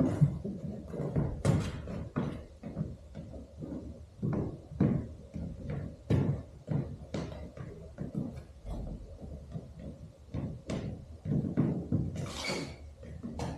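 Dancer's boots stamping and stepping on a stage floor: a run of irregular dull knocks with no music, and a brief hiss-like sound near the end.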